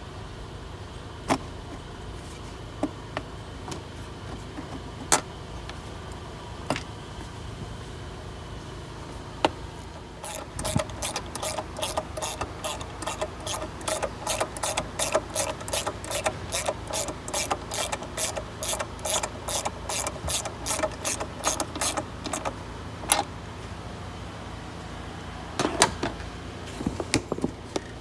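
Hand ratchet wrench clicking in a regular run of about three strokes a second for some twelve seconds, working a bolt while the AC pipe is secured in its bracket. A few single tool clicks and knocks come before and after the run.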